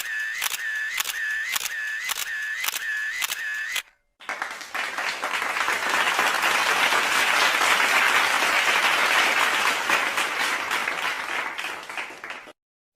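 Two sound effects in turn. First come sharp clicks about twice a second, with a short dipping tone between them, for about four seconds. After a brief gap, applause swells and then fades out near the end.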